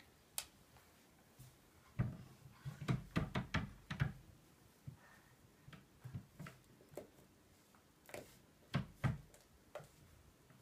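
Knocks and clatter from a wooden chest of drawers as a baby rummages in an open drawer and pulls on it: a quick run of knocks about two to four seconds in, then scattered single knocks and clicks.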